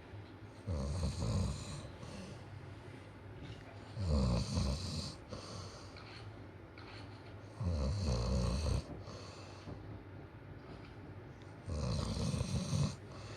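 Snoring in sleep: four snores, one about every four seconds, each about a second long, with quieter breathing in between.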